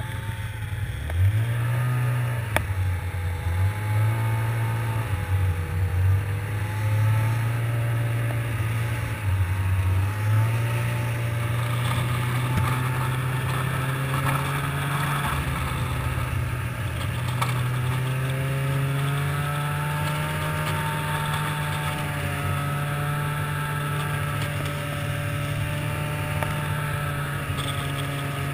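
Snowmobile engine under way. Its speed rises and drops in quick steps over the first ten seconds or so, then settles to a steady run, with one more step up a little past the middle.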